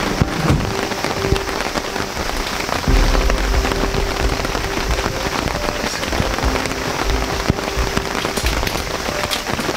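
Steady rain falling on the polycotton fly of a large dome tent, heard from inside, getting louder about three seconds in.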